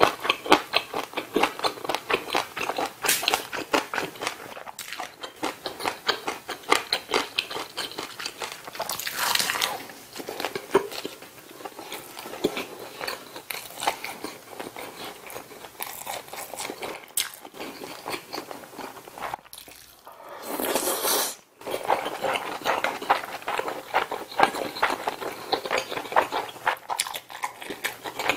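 Close-miked chewing and wet mouth sounds of a person eating budae-jjigae with ramen noodles, a dense run of small smacks and clicks. Two louder hissing bursts stand out, one about a third of the way in and one about two-thirds through.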